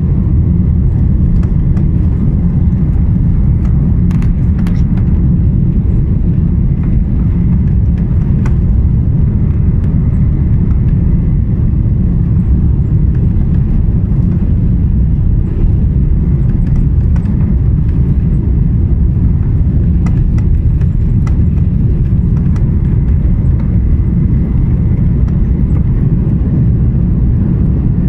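Cabin noise of an Airbus A330 moving along the ground: a loud, steady low rumble from its Rolls-Royce Trent 700 engines and rolling wheels, heard through the fuselage, with a few faint clicks.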